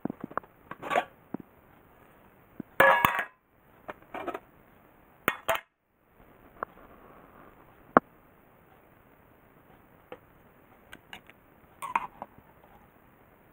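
Metal mess tin (hangou) handled: its lid is lifted off with loud metallic clatters and scrapes, the loudest about three seconds in. Then a few sharp clicks and light clinks near the end, as chopsticks knock against the tin while stirring the ramen noodles.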